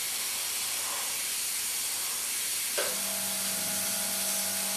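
Airbrush spraying paint: a steady hiss of air and paint from the nozzle. A steady low hum joins about three seconds in.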